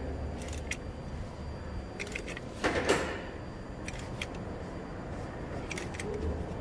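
Scattered light metallic clicks of a wrench being worked on a spin-on engine oil filter, with one louder scrape a little before the middle.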